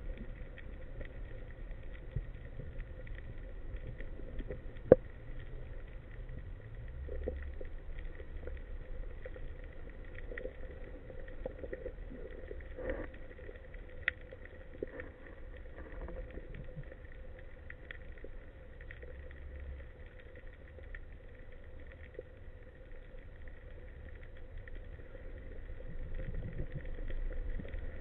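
Underwater ambient sound picked up by a speargun-mounted camera in its housing: a low rumble with scattered faint clicks and crackles, one sharp click about five seconds in, growing a little louder near the end.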